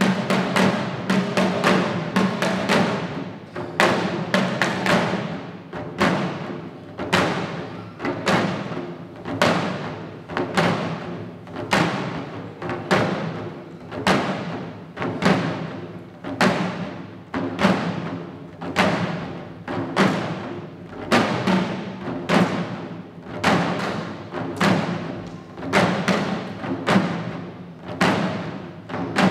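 Shishi-odori dancers' chest-worn taiko drums beaten together in a steady rhythm, about one heavy stroke a second with lighter strokes between.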